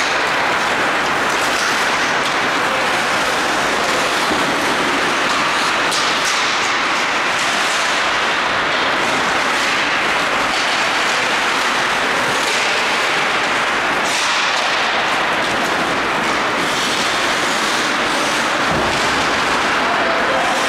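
Ice hockey game heard in an ice hall: a steady wash of rink noise, with a few brief scrapes of skate blades on the ice and a low knock near the end.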